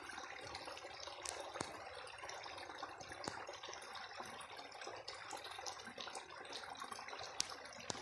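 Faint, steady running water of a mountain stream flowing over rocks, with a few light clicks scattered through it.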